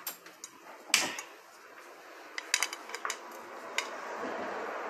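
Metal kitchenware clattering: two sharp knocks of a metal strainer against dishes, then several light clinks and a steady soft hiss from about two and a half seconds in, as fried diced potatoes are handled in the strainer to drain off their oil.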